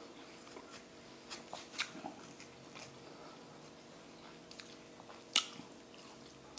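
Metal spoon scraping and scooping the flesh out of a half watermelon rind, with soft chewing of watermelon; small scattered clicks, the sharpest about five seconds in.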